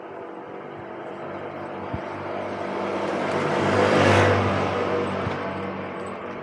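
Motorbike passing close by: its engine and road noise build up to a peak about four seconds in, then fade away.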